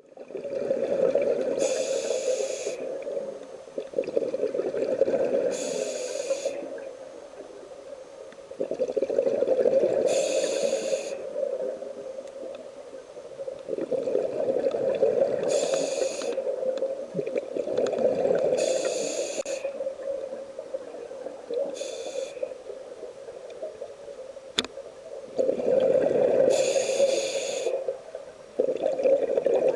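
Scuba diver breathing through an open-circuit regulator underwater: a short hissing inhale roughly every three to five seconds, each followed by a longer, louder rush of exhaled bubbles.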